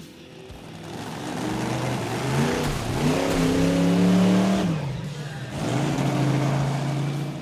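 Car engine revving: its pitch climbs over about a second and a half, holds high, drops away, then climbs and holds again before fading near the end.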